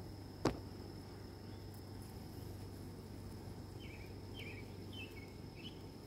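Honeybees buzzing on an open brood frame, a low steady hum of the colony. A sharp click about half a second in stands out, and four short high chirps come near the end over a thin steady high tone.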